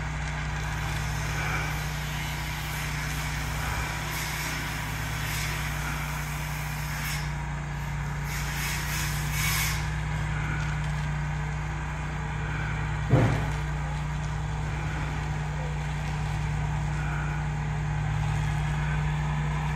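A steady engine drone with a low hum. About halfway through there is some faint hissing, and about two-thirds through a short sound glides down in pitch.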